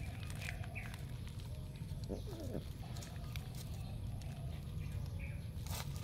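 Birds chirping faintly a few times over a steady low outdoor rumble, with a short scuff near the end.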